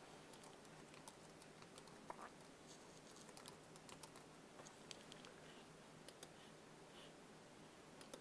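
Faint typing on a computer keyboard: a run of light key clicks, thickest in the first half and thinning to a few scattered clicks later, over a faint steady low hum.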